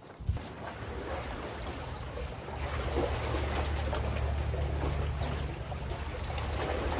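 Steady low engine drone of a boat, over the wash and slosh of sea water.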